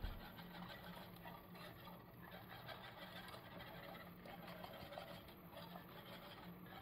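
Faint, irregular scraping of a wire whisk stirring thickening orange curd in a metal saucepan, over a low steady hum.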